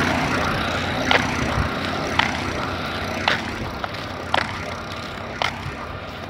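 Rolling noise of a slow vehicle travelling a brick-paved road, fading gradually, with a sharp click repeating about once a second.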